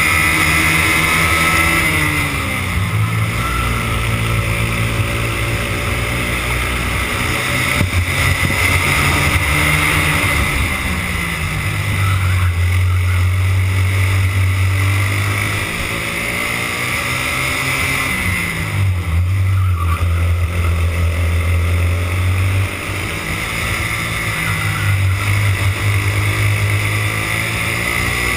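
Racing kart engine heard onboard at speed, its pitch climbing under acceleration and dropping sharply about four times as the throttle comes off for corners.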